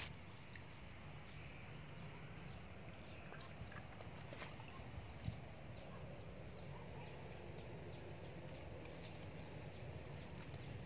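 A bird repeating short, high, falling chirps, about one or two a second, over a steady low hum; a single sharp click about five seconds in.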